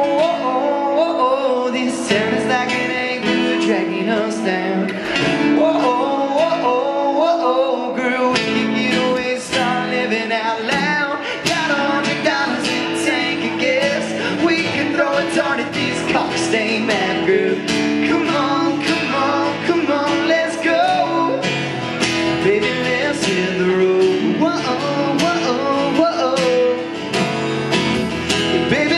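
Live acoustic country song: two acoustic guitars strummed in a steady rhythm, with two male voices singing.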